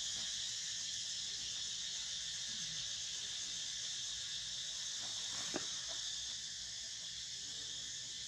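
Steady, high-pitched insect chorus, with a single soft click about five and a half seconds in.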